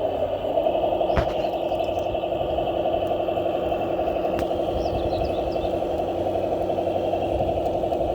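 A 1:14 scale RC model truck or construction machine running with a steady, even drone, and a single sharp click about a second in.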